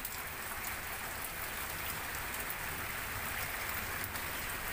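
Steady heavy rain falling, with the hiss of the downpour and the patter of drops striking surfaces on and around a moored boat.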